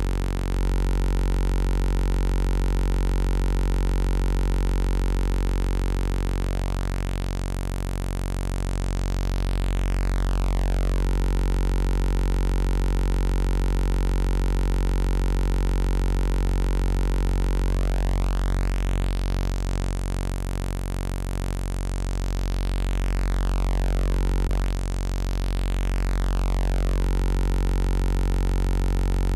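U-he Zebra 2 software synthesizer holding one low, buzzy note rich in overtones while its wave-shaper settings are changed. The tone sweeps up and back down about a quarter of the way in and again through the second half, with a short stretch of fast pulsing just past the middle.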